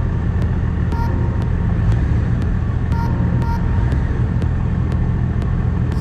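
A four-wheel-drive vehicle driving, its engine and tyres making a steady low rumble.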